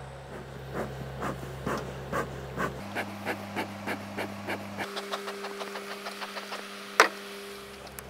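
A person panting in rhythm, about two to three breaths a second. One sharp click about seven seconds in.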